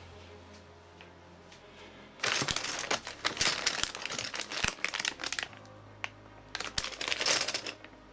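Anti-static plastic bags holding memory modules crinkling and rustling as a hand rummages through them: a burst of crackling about two seconds in that lasts some three seconds, then a shorter spell near the end.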